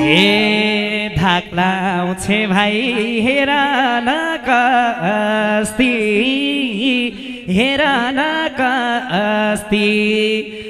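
Live Nepali lok dohori folk music: a male singer's drawn-out, wavering vocal line over instrumental accompaniment.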